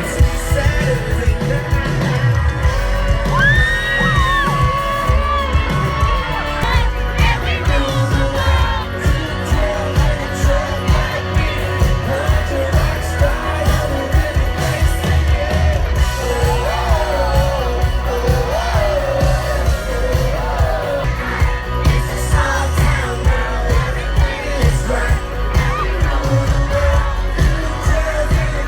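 Loud music with a singer over a steady beat and heavy bass, with crowd yelling mixed in.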